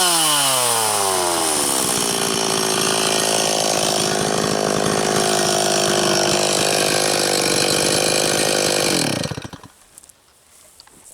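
Stihl 026 two-stroke chainsaw coming down off throttle, its pitch falling over the first couple of seconds, then idling steadily. About nine seconds in it is shut off and the engine stops abruptly.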